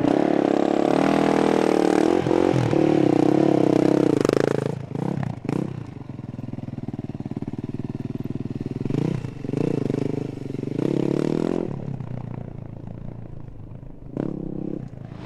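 Yamaha rally motorcycle engine running hard at high revs for about four seconds, then quieter, revving up and down several times, with clatter from the bike on rough ground.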